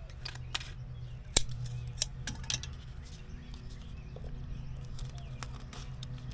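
Scattered light clicks and knocks from hands-on work, with one sharper knock about a second and a half in, over a steady low hum.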